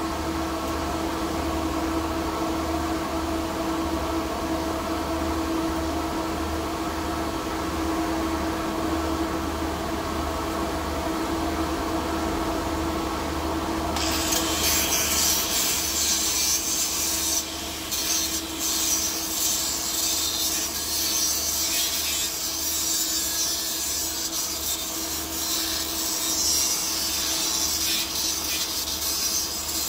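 A steady fan hum, then, about halfway through, a small angle grinder starts grinding the weld joint on a P22 chrome-moly steel pipe. It keeps up a loud, hissing grind, with a few short dips as it is moved along the joint.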